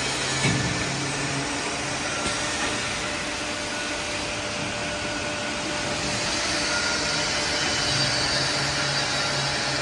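İsra 60 semi-automatic shrink-wrapping machine running with a steady blowing noise. A low hum under it drops away after about a second and a half and comes back near the end, and there is one short knock about half a second in.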